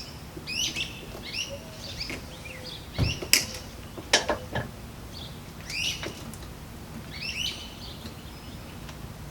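A songbird singing a short chirping phrase over and over, a phrase every second or so. There are a few sharp knocks about three and four seconds in.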